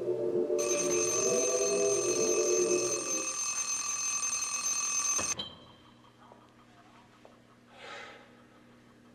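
Alarm clock bell ringing without a break, starting about half a second in and cut off abruptly about five seconds later. Soft music fades out under it in the first few seconds, and a faint brief noise comes near the end.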